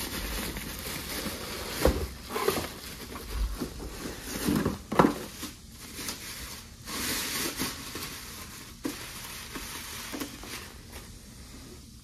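Bubble wrap rustling and crinkling as a car taillight is pulled out of it, with a few louder crackles about two and five seconds in, then quieter handling.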